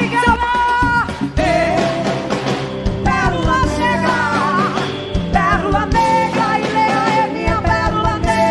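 Live axé band music: a woman sings the lead with long held notes over a full band and drums.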